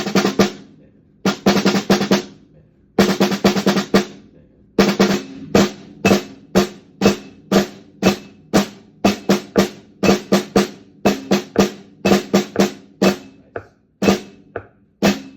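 Drum warm-up: three short bursts of rapid rolls in the first four seconds, then single strokes and small groups of strokes at about two to three a second. Every strike rings at the same pitch.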